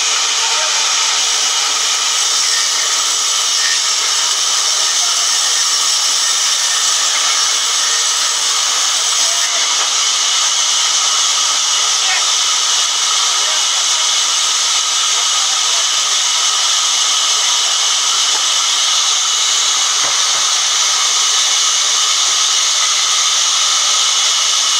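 Large sawmill band saw cutting lengthwise through a log as it is pushed along on its carriage: a loud, steady, high hiss.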